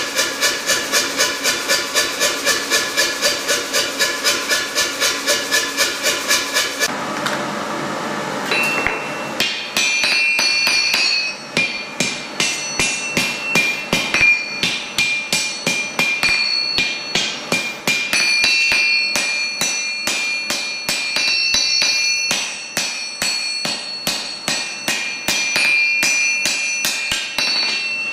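Blacksmith's hand hammer forging red-hot flat steel on an anvil: irregular sharp blows with the anvil ringing after them. For the first several seconds a fast, even run of strikes comes about four or five a second, followed by a brief noisy stretch before the hand hammering starts.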